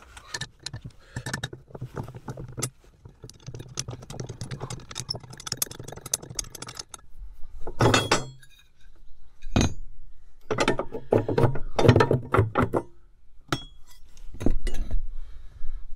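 Bursts of clinks, clicks and knocks as the plastic cover and fittings of a van's under-floor battery compartment are handled and lifted. Two louder single knocks stand out about halfway through.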